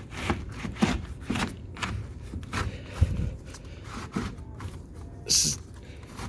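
A furnace filter being shoved and jostled in its slot in the furnace: scraping, rubbing and small knocks as it jams partway in, with a louder knock about three seconds in and a short hiss near the end.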